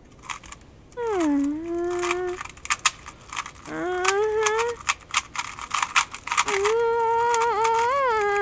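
A woman humming a few long, gliding notes with her mouth closed, over a scatter of sharp plastic clicks from a Rubik's-style puzzle cube being twisted.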